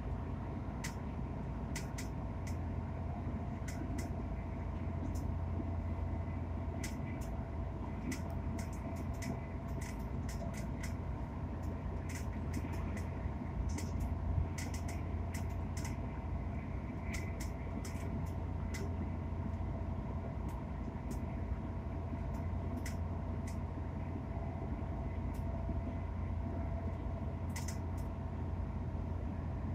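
Inside a coach of a Hitachi Class 802 bi-mode train running at speed: a steady low rumble with a steady whine from the running gear and engines. Over it come frequent sharp, irregular clicks, which the uploader puts down to loud rattles from the new coach's fittings.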